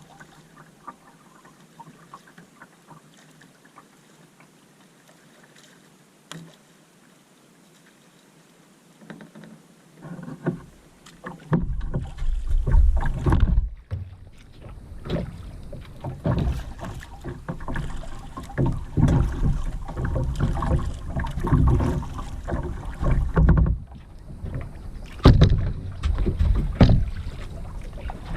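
Kayak paddling on a river: quiet paddle and water sounds at first, then from about eleven seconds in, loud irregular low rumbling and splashing close to the microphone.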